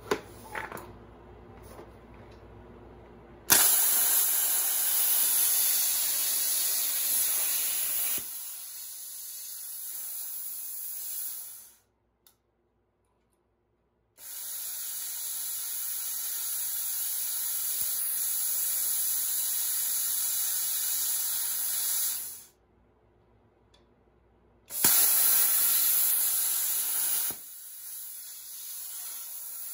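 Plasma cutter torch hissing steadily as it cuts a circle in sheet steel. It comes in three runs of several seconds each, with short silences between them. The first and last runs start loud and drop to a quieter hiss partway through.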